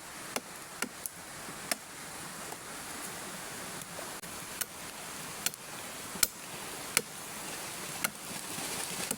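A steady rushing noise with sharp clicks scattered through it, roughly one a second, that grows a little louder toward the end.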